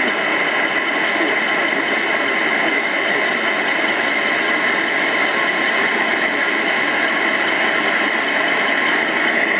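Steady radio static hiss from a weak radio signal, with no voice getting through.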